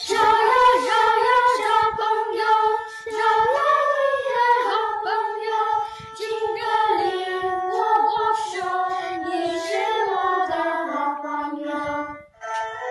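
A children's choir singing a melody together in unison. The voices stop a little before the end, and instrumental accompaniment comes back in.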